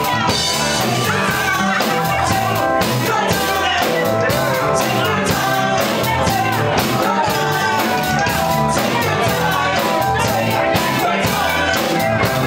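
Live band playing a song with female lead and backing vocals over electric bass, keyboards and a drum kit keeping a steady beat.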